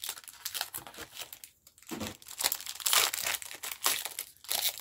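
Foil wrapper of a Pokémon TCG booster pack crinkling as it is torn open and handled: a rapid run of crackles, loudest about three seconds in.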